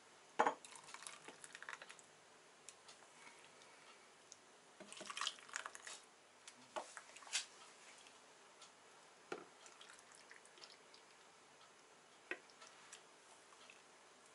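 Ladle scooping thick tomato marinade from a stainless steel pot and pouring it into glass jars: liquid splashing and dripping, with a few sharp clinks of the ladle against the pot and jar rims, the busiest stretch about five seconds in.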